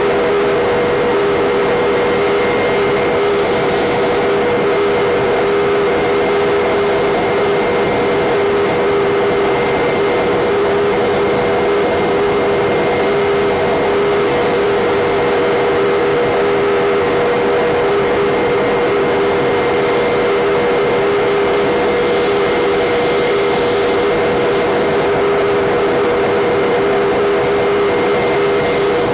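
Helicopter in flight heard from inside the cabin: a steady, unchanging drone of engine and rotor noise with constant whining tones.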